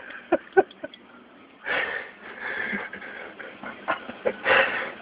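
People laughing hard and breathlessly: wheezing, gasping laughter with a few short squeaks of voice at first, then long breathy gasps.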